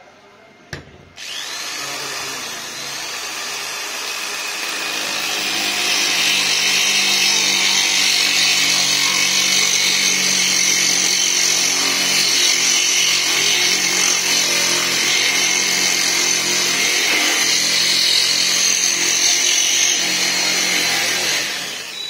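Handheld electric drill boring a 2-inch hole through sheet glass with a wet core bit: a click, then the motor spins up with a rising whine and settles into a steady, loud grinding whine as the bit cuts, winding down near the end.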